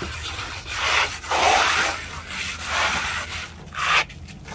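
Plasterer's hand trowel rubbing and scraping across acrylic fine-finish stucco on a pillar: several sweeping strokes, each about a second long.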